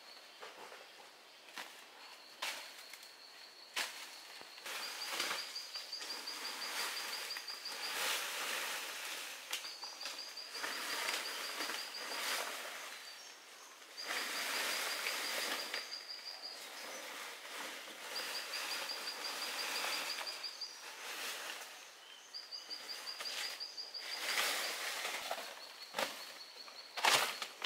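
Footsteps and rustling through dry leaf litter on a forest floor, uneven and louder in stretches, with a few sharp snaps near the end. Behind them a high, rapid trill repeats in bursts of about two seconds every few seconds.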